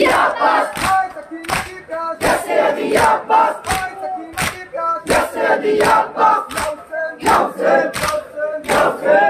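Group of men chanting a Muharram lament in unison while beating their chests together with open hands (matam), a sharp slap falling in time about every three-quarters of a second under the voices.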